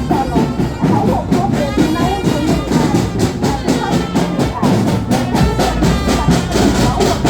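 Loud music with a steady, rhythmic drum and percussion beat, with voices over it.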